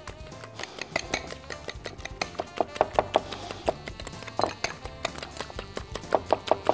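Egg and flour batter being beaten in a glass bowl, the utensil clicking quickly and unevenly against the glass, over faint background music.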